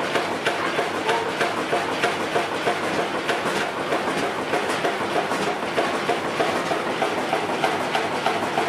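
1929 Fairbanks Morse two-cylinder, 5,000-cubic-inch stationary engine running without load, its valve gear clattering in a steady rhythm of sharp ticks.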